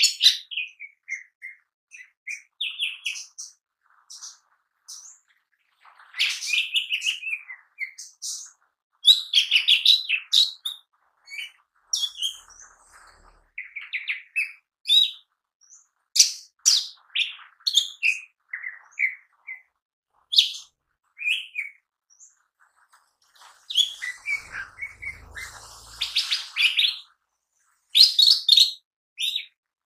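Lesser green leafbird (cucak ijo mini) singing a long, varied string of short chirps, whistles and trills, broken by brief pauses, with a busier burst of song near the end.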